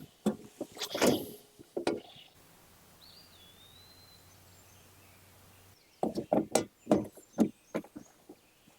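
Irregular knocks and clatters of hard objects being handled: a few in the first two seconds, then a quick run of about eight knocks near the end.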